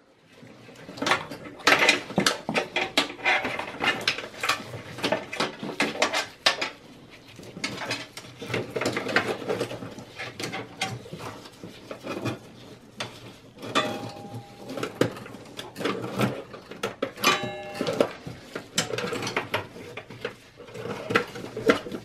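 Power supply cables and plastic connectors handled inside a desktop PC's metal case: a steady run of clicks, light knocks and rustling as the leads are routed and plugged in, with a couple of brief squeaks.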